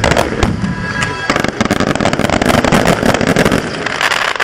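Aerial fireworks bursting, with rapid crackling pops, over music playing.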